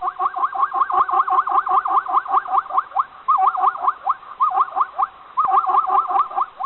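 An animal's fast string of short, high squealing calls, each rising and then falling in pitch, about six a second, with a few brief pauses.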